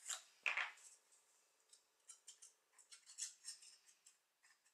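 Faint, scattered small clicks and scratches of paper pieces and a glue bottle being handled as glue is put on a card frame for a scrapbook ATC.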